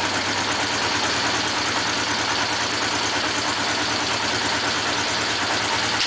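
Honda CB500 Four K1's air-cooled inline-four engine idling steadily on its first start-up.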